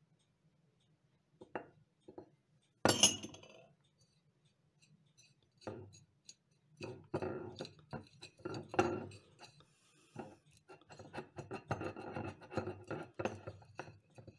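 Metal spoon clinking and scraping against a glass dish as it works a lump of wet dough, with one sharp clink about three seconds in. From about halfway a dense run of small clicks and rubbing follows as fingers knead the dough against the glass.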